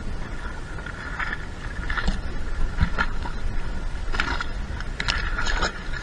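Water splashing and dripping against the side of a kayak, with a scattering of short splashes and ticks from about two seconds in, over a low rumble of wind on the microphone.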